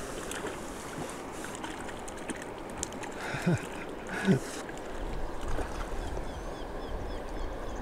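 Hooked crucian carp splashing at the water surface as it is played on light line, with two short splashes about three and a half and four seconds in, each with a low falling sound.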